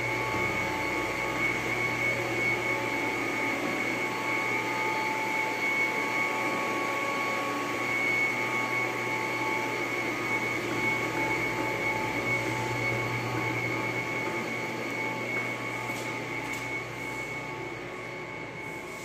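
A machine running steadily: an even hum and rush with a steady high whine, easing off a little near the end.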